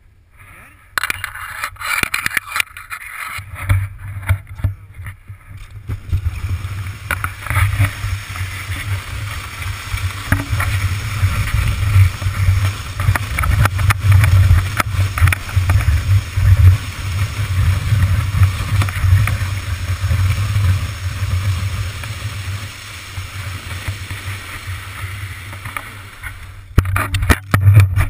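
Plastic sled sliding fast down a snowy slope: a continuous scraping hiss of the sled on snow under a heavy low rumble of wind on the microphone, ending in a few knocks and bumps near the end as the sled tips over.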